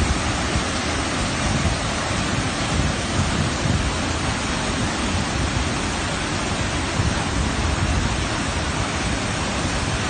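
Waterfall and rushing river water making a steady, even roar, with an uneven low rumble underneath.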